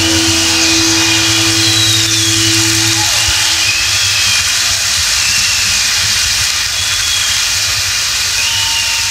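Rock band's last chord ringing out and stopping about three seconds in, over a large concert crowd cheering and applauding with scattered whistles.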